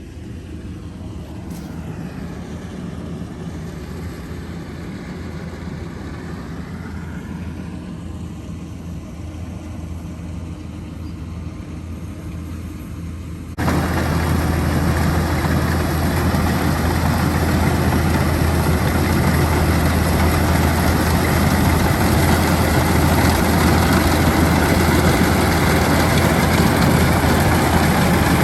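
Kubota DC-105X combine harvester's diesel engine running steadily. About halfway through, the sound jumps suddenly much louder and stays loud.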